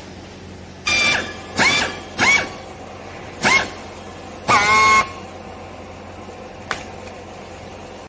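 Handheld strapping tool's motor whining as it tensions plastic strap around a bale: five short bursts, each rising quickly in pitch at the start, the last the longest, then a single click near the end.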